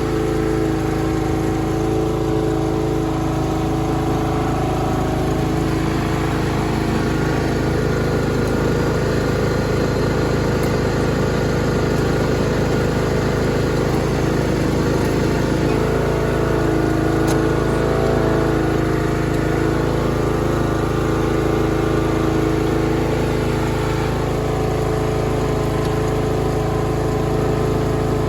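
Troy-Bilt Bronco riding lawn mower's engine running steadily at idle.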